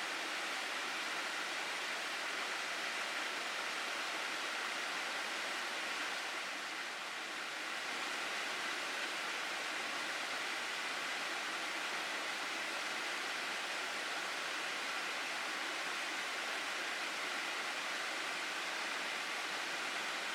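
Steady rush of running water in a mountain gorge stream, briefly a little quieter about seven seconds in.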